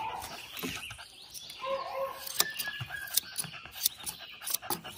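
Grooming shears snipping through a cocker spaniel's long foot hair: a handful of crisp, spaced snips as the foot is trimmed round.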